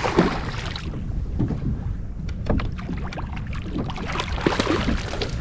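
Hooked striped bass thrashing and splashing in the water beside a kayak, with scattered sharp knocks and splashes over steady wind noise on the microphone.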